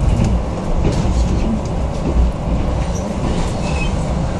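Passenger train running along the track, heard from inside the carriage as a steady low rumble with faint clicks.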